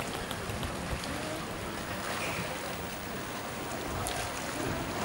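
Oars of a wooden replica Roman rowing ship working the canal water: a steady wash of water with a few faint knocks. Wind rumbles on the microphone underneath.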